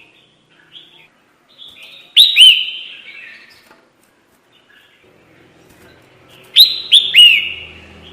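Crested bulbul (kutilang) lure call: loud, clear chirping phrases, a pair of notes about two seconds in and three near the end, with softer chirps between. A faint low hum runs under the second half.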